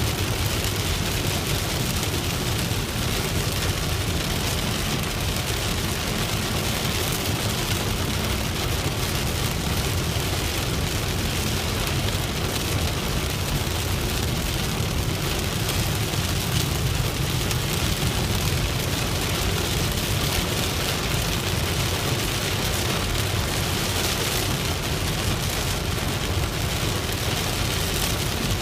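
Steady rain falling on a moving car, mixed with the car's steady road and engine noise.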